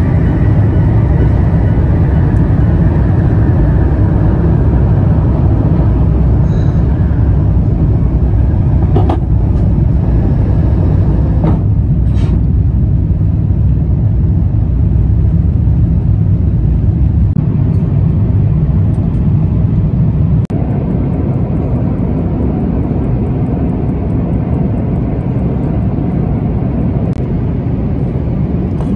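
Steady roar of a jet airliner's engines and airflow heard inside the cabin during the climb after takeoff, with two short clunks near the middle. The roar drops a little in level about two-thirds of the way through.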